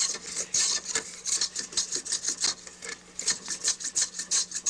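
Hand plane with a hollow-ground blade taking quick back-and-forth strokes along a split-cane rod strip held in a grooved planing block, a short scratchy shaving sound several times a second. The sound of the cut tells the maker when he is down to the level of grain he wants.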